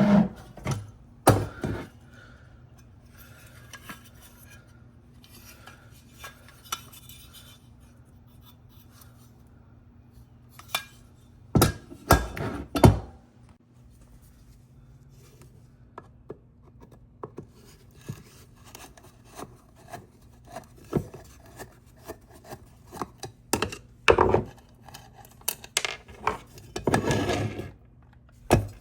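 Scattered clinks, knocks and scrapes of small metal parts being handled, with a few louder clusters, over a steady low hum.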